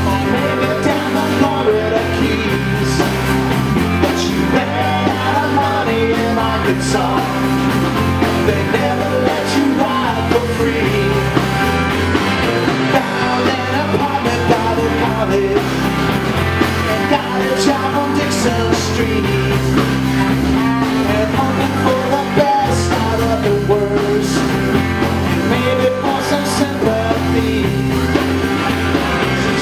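Live blues-rock band playing: electric guitars over drums and a moving bass line, with a singer's vocals.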